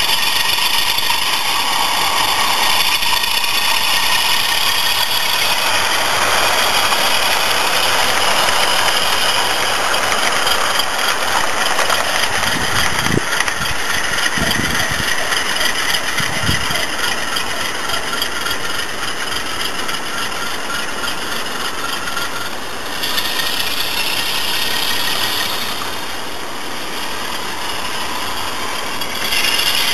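Sound-fitted model diesel locomotive's DCC sound decoder playing a diesel engine running, through the model's small speaker, with a few low thuds about halfway through as the train pulls away.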